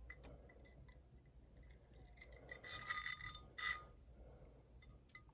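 Silver Cuban link chain and pendant being handled: soft clicks and rubbing of metal links, with two brief jingles a little before and after the middle.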